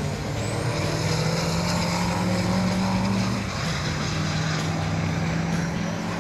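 Diesel engines of racing trucks running, the engine note climbing a little and then dropping back about three and a half seconds in.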